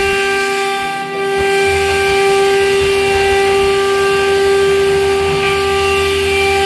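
Water-cooled spindle of a CNC router with a steady high whine as the bit routes a groove in MDF, with a low hum joining in about a second and a half in.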